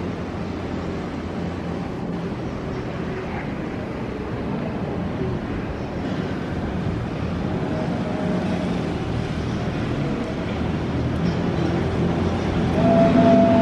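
Steady city traffic: the low rumble and hum of vehicle engines, getting louder near the end as a vehicle draws close.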